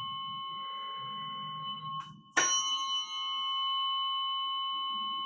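Tuning forks ringing with steady, pure high tones. About two seconds in, the ringing nearly dies away, then a sharp tap strikes them again and the tones ring on.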